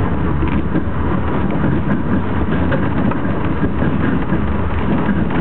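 Passenger train running along the track, heard from inside the carriage: a loud, steady rumble of wheels on rails.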